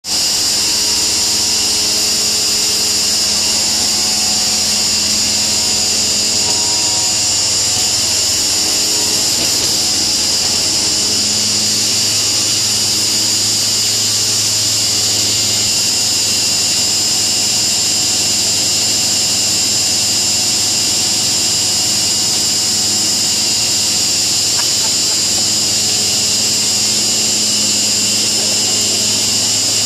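Steady, loud machinery noise, likely the blower of a dry-bulk powder tanker unloading: a strong high hiss over a low hum, unchanging throughout.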